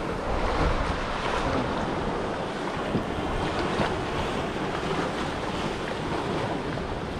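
Wind buffeting the microphone over sea water lapping and splashing against the side of a kayak, a steady rushing noise.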